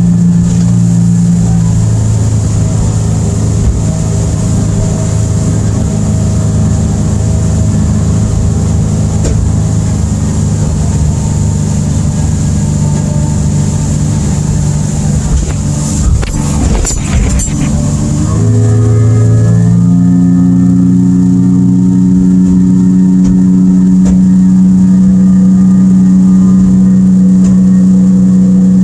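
Evinrude E-TEC 115 two-stroke outboard running hard, pushing an aluminium boat at planing speed, with rushing water under the hull. About two-thirds of the way in there is a brief rattle of knocks, then the engine note steps up in pitch and gets a little louder.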